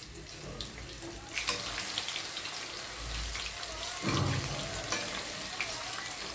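Flour-coated pieces of liver deep-frying in hot oil, a steady sizzle with fine crackles that gets louder about a second and a half in. A short low bump about four seconds in.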